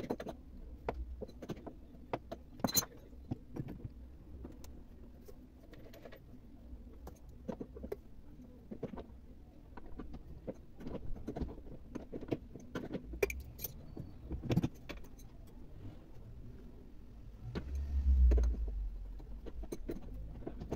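Scattered metallic clicks, clinks and knocks of tools and screws as the bolts of a conventional sewing-machine motor are loosened under the table, with a heavier low thud near the end.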